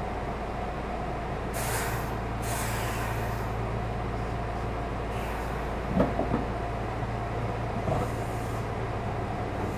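Meitetsu 6500-series electric train car Mo 6461 with a steady hum and a held tone from its equipment. Air hisses several times, sounding like the air brakes, and there are a few sharp thuds, the loudest about six seconds in.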